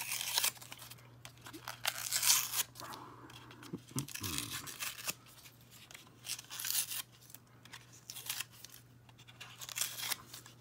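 Plastic wrap being torn and peeled off a MiniVerse toy capsule, crinkling and ripping in irregular bursts.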